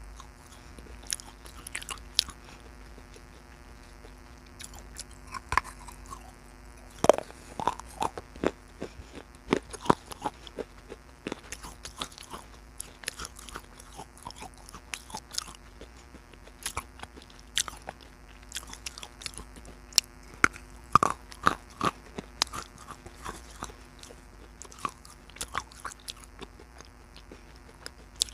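Close-miked biting and chewing of hard baked clay pot pieces: irregular sharp crunches and grinding bites, loudest in clusters about a quarter and three-quarters of the way through, over a faint steady hum.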